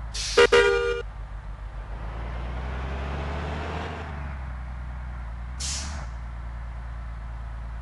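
A short bus horn blast about half a second in, over a diesel bus engine running steadily. The engine noise swells for a few seconds, and an air brake lets out a brief hiss near the end.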